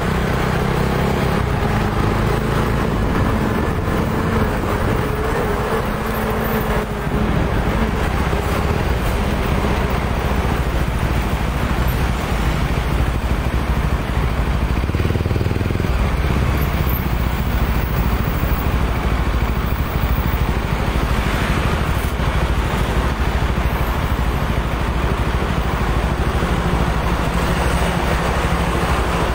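Motorcycle engine running amid road traffic, heard from on the bike itself: a steady, loud mix of engine and traffic noise.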